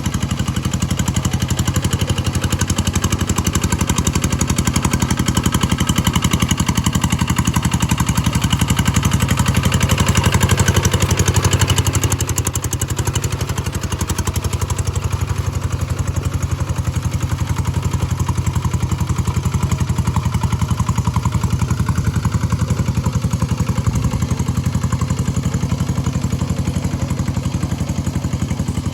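Engine of a G1000 hand tractor running steadily, growing a little louder up to about eleven seconds in, then easing back.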